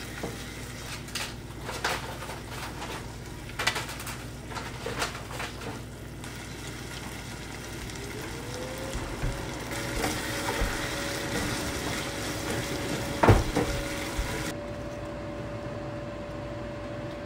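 Tteokbokki sizzling in a nonstick pot on a gas stove. In the first few seconds a wooden spatula stirs it, with quick scrapes and clicks. Past the middle a steady hum comes in, rising briefly before it settles, and there is one sharp knock.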